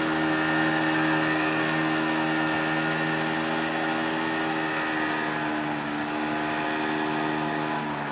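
Outboard motor of a long wooden river boat running steadily under way, over the rush of water and wind. Its pitch and loudness sag slightly near the end.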